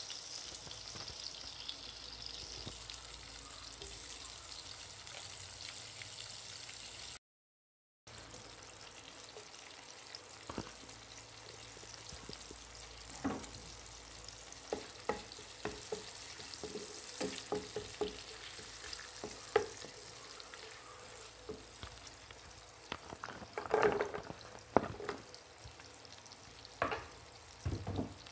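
Margarine sizzling steadily in a nonstick pan. After a brief dropout, pandan and curry leaves and garlic cloves fry in the hot fat with sharp pops and crackles, and a wooden spatula taps against the pan as it stirs, most busily near the end.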